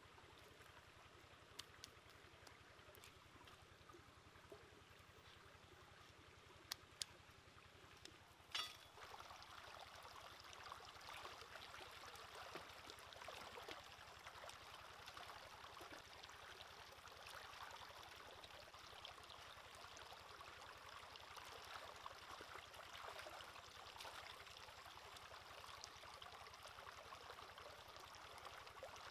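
Shallow rocky stream running and splashing, faint and steady, growing louder about nine seconds in. Before that the sound is quieter, with a few sharp clicks.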